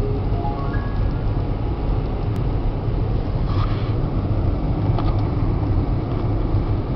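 A car driving at highway speed, heard from inside the cabin: a steady low rumble of engine and tyre noise. Two faint clicks about halfway through.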